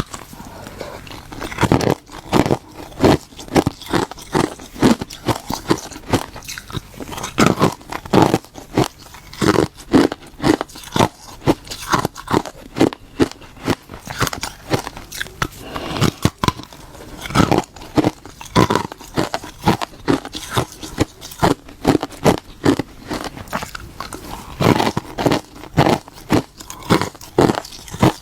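A person biting and chewing hard, crunchy ice close to the microphone: a steady, irregular run of sharp crunches, several a second.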